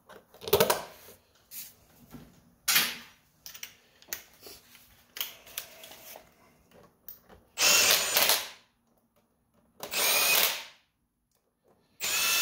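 A few light clicks and knocks as the plastic engine-cover bolts are set, then a cordless impact driver runs three times, for about a second each, driving the T30 bolts into the engine cover.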